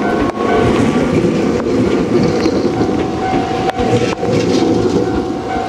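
Chichibu Railway electric train running along the track, with a dense rumble and a few sharp clicks of wheels over rail joints. A steady tone comes in about three seconds in.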